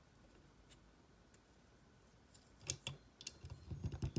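Faint room tone, then from about two and a half seconds in a run of small sharp clicks and taps of Lego plastic being handled, as a minifigure is fitted into a small Lego car.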